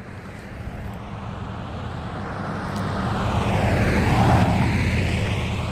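A road vehicle driving past, growing louder to a peak about four seconds in and then fading as it moves away.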